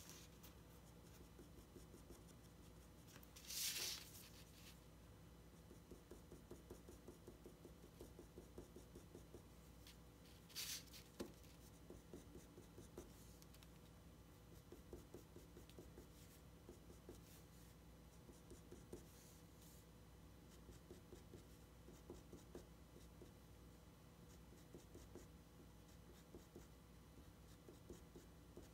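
Graphite pencil scratching faintly on drawing paper in quick, short shading strokes. Two brief, louder hisses come near 4 s and about 11 s in.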